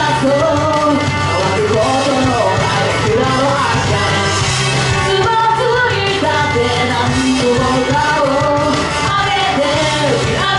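A woman singing live into a handheld microphone over loud backing music with a steady bass line.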